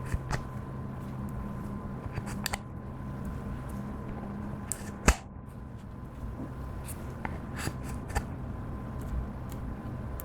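Clear slime being worked by hand, giving scattered sticky clicks and pops, with one sharper pop about five seconds in, over a steady low hum.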